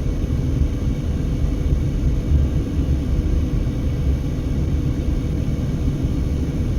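Steady low rumble of a car driving, heard from inside the cabin, with strong gusty wind buffeting the car.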